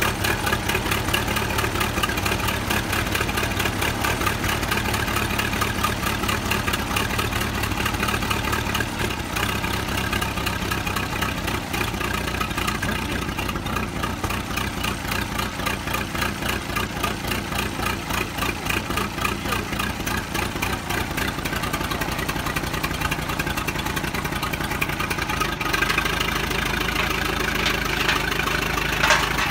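A 1930s Fordson tractor's four-cylinder engine running steadily at idle, with an even, rapid firing beat.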